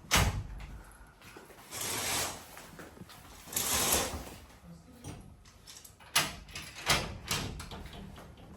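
A door being opened: a sharp knock at the start, then two longer scraping noises, and a few sharp clicks a little over halfway through.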